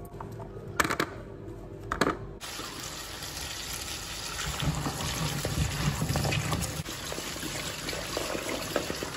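Two short sharp knife clicks while peeling ginger root, then a kitchen tap running steadily onto pieces of ginger and garlic in a plastic colander in a stainless steel sink as they are rinsed.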